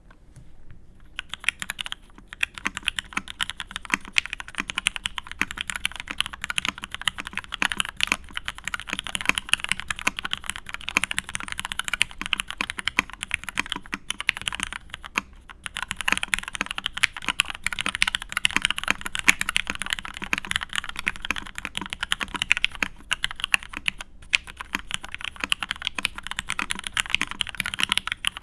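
Matrix 8xv2.0 mechanical keyboard with Krytox 205g0-lubed vintage Cherry MX Black linear switches on an aluminium plate and Cherry G80-3000 keycaps, typed on quickly and steadily. Typing begins about a second in and breaks off briefly twice.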